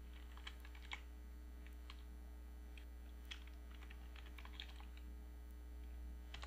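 Computer keyboard typing: faint, irregular keystrokes in short runs, over a steady low electrical hum.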